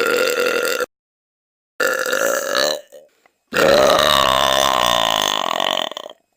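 A person letting out three loud, deliberate belches in a row with short pauses between them. The last belch is the longest, lasting about two and a half seconds.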